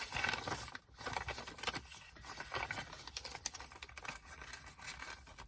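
Paper pages of a handmade journal being handled, with light rustling and many small irregular clicks and taps as a flip-out pocket and its paper inserts are opened.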